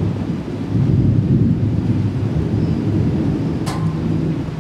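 Low, continuous rumbling of thunder from a thunderstorm, with a single brief click about three-quarters of the way through.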